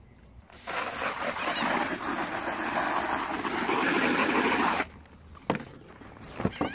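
Water from a garden hose spray nozzle hitting an insulated fish bag: a steady hiss for about four seconds that cuts off sharply. A sharp click follows about a second later, then a few lighter clicks as the bag is handled.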